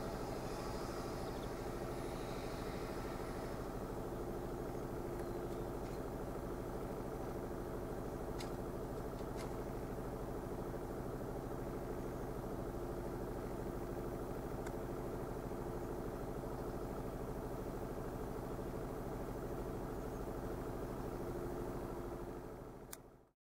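A vehicle engine idling, a steady even hum that fades out near the end.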